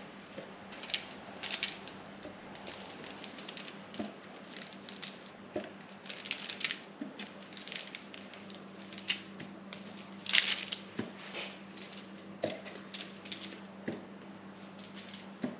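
Hands rounding pieces of bun dough on a bench: irregular soft pats, squishes and scuffs of dough against the table, over a steady low hum.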